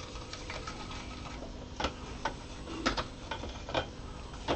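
Irregular light clicks and taps of hard 3D-printed plastic parts and a glue bottle being handled, about six sharp ones in the second half, over a faint steady hum.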